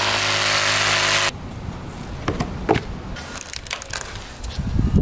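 Kobalt reciprocating saw cutting through a rotted, water-soaked wooden wall stud, its motor cutting off abruptly about a second in. Then a few scattered knocks and cracks of wood as the cut stud is worked free.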